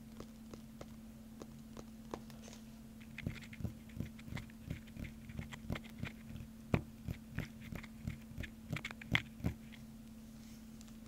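Mouth sounds close to the microphone: a run of short wet clicks, about three a second, starting a few seconds in, over a steady low hum.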